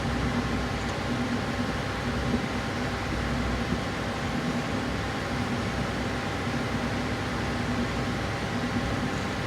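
Steady mechanical hum of a running machine, with a faint steady whine over an even hiss.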